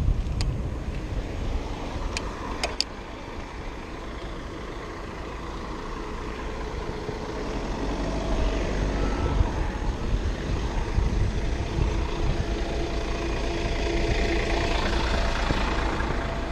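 A motor vehicle growing louder through the second half, over a steady low wind rumble on the microphone.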